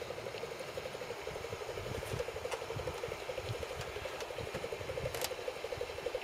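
Radio-controlled model paddle steamer under way: a steady, rapid pulsing of about eight beats a second, with a few sharp clicks.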